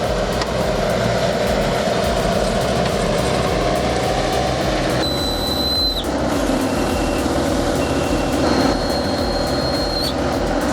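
Heavy equipment engine running steadily under load, with a thin high whine heard twice for about a second each.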